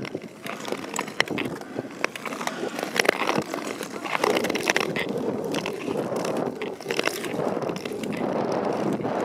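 Ice skate blades scraping and cutting over rough natural lake ice, stroke after stroke, with many sharp clicks and scratches.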